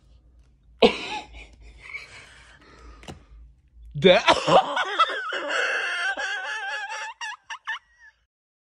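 A woman gasps about a second in, then laughs in a long, high-pitched squeal from about four seconds in that breaks into short bursts near the end.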